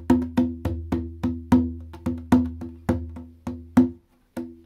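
Djembe, a rope-tuned goblet drum with an animal-skin head, played with bare hands in an improvised beat of about three to four strokes a second, each stroke a deep boom under a ringing tone. The beat breaks off briefly near the end, then one more stroke.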